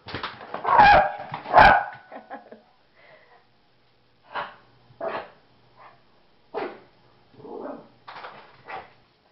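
Shih Tzu barking in play: two loud barks in the first two seconds, then a series of shorter, softer barks spaced about a second apart.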